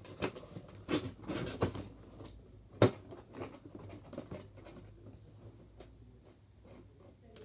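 Cardboard toy-blaster box being handled and its flaps pulled open: scrapes, rustles and taps on the cardboard, with one sharp knock about three seconds in, then fainter scattered taps.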